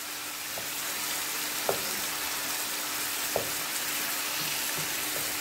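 Marinated chicken pieces sizzling in hot oil on high flame, with a wooden spatula working in the pan as the pieces are turned over. There are two short knocks of the spatula against the pan, about a second and a half apart.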